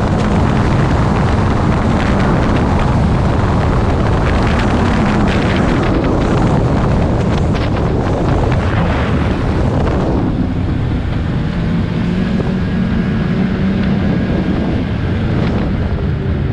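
Snowmobile engine running at speed, with heavy wind rush on the microphone. About ten seconds in the wind rush drops away and the engine's steady hum comes through more clearly.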